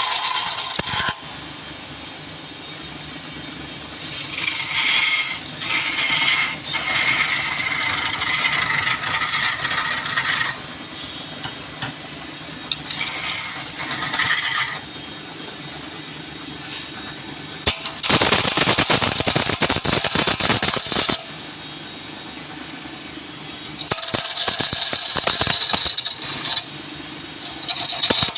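Wood lathe running with a steady motor hum, while a turning tool cuts the spinning wood in several bursts of a few seconds each, the longest about six seconds.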